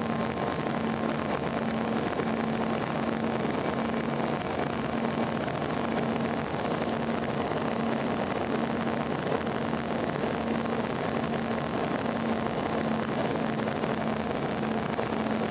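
Steady cabin noise inside an Embraer EMB-145 regional jet on its landing approach: the rush of airflow and the drone of its two rear-mounted Rolls-Royce AE 3007 turbofans, with a low hum that pulses gently.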